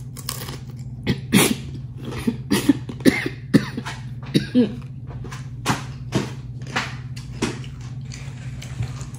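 A person coughing and clearing their throat in a run of short coughs, irritated by cayenne-spiced chips. The coughs start about a second in and thin out near the end, over a steady low hum.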